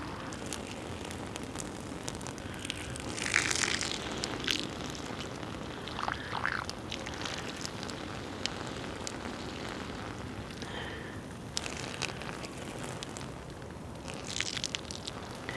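Boiling water poured from a pot onto a knife and an axe head lying on a log, splashing and pattering on the steel and wet bark, with scattered crackles. Louder splashes come about three and a half seconds in and again near the end.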